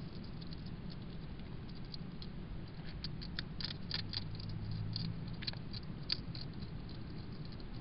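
Hedgehog eating dry food from a bowl: a run of small, crisp crunching clicks through the middle few seconds, over a steady low hum.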